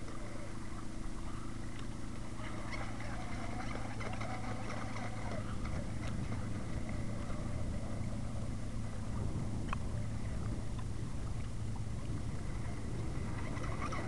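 Radio-controlled model hydroplane running across light chop, a steady motor drone whose pitch wavers a little, with wind noise underneath.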